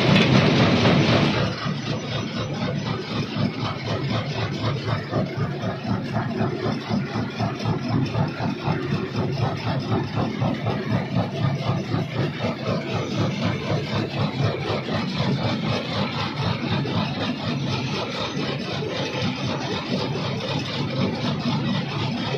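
Large jaw crusher running, its swing jaw and flywheel working with a rapid, even rattling knock. It is loudest for the first second or so, then steady.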